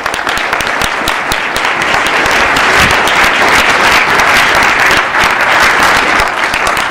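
Audience applauding, a dense steady clapping that begins to thin out near the end.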